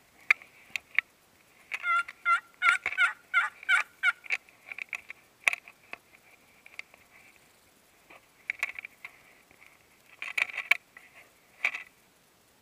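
Hand-held friction turkey call worked in short runs of sharp, scratchy hen-like notes: a quick run about two seconds in, then shorter bursts later.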